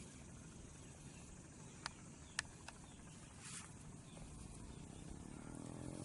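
Faint outdoor background with a few soft clicks about two seconds in.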